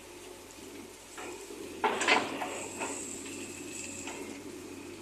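Metal clanks and scraping from a JCB 3DX backhoe loader's bucket working the soil, with the loudest knocks about two seconds in, over a steady low hum of the machine running.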